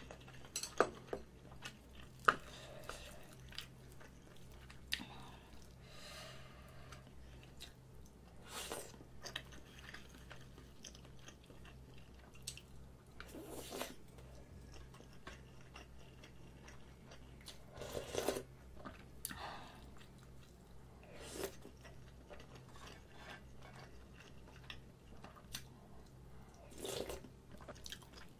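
Close-miked eating sounds: a person chewing and biting Spam, rice and kimchi stew, with wet mouth noises every few seconds. A few sharp clicks of chopsticks against the dishes near the start, over a steady low electrical hum.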